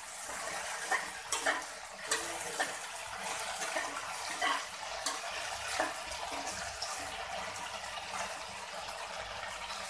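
Sliced okra sizzling as it fries in hot oil in a metal kadhai, stirred with a steel spoon that scrapes and taps against the pan now and then.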